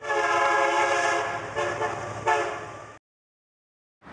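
Logo sting: a held, horn-like chord sounds, is struck twice more briefly, fades away and cuts to dead silence about three seconds in.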